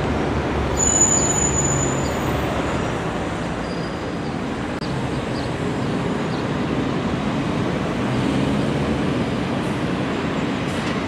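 Alstom Citadis 302 tram running along its track: a steady mix of motor and wheel noise. A short, high-pitched squeal comes about a second in.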